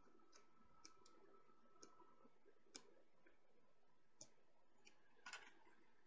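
Faint, scattered clicks and ticks of small plastic parts being handled: a laptop's hard-drive ribbon cable and its connector being reseated by hand in the open drive bay. The loudest is a short cluster of clicks about five seconds in.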